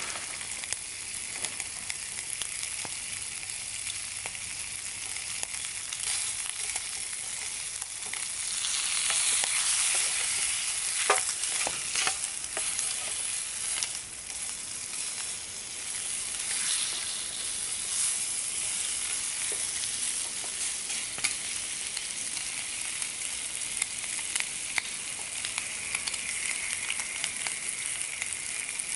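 Bacon sizzling as it fries in a small pan on a camping stove, a steady crackling hiss that swells for a few seconds about a third of the way in. A few sharp clicks and scrapes of a wooden spatula against the pan come as the bacon is turned.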